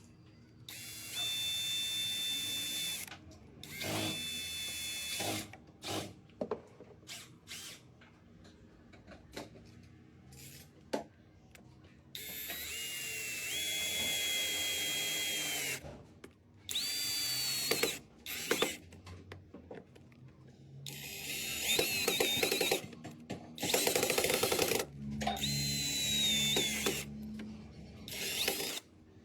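Power drill running in repeated bursts of one to four seconds, each a steady high whine, with short clicks and knocks between the bursts.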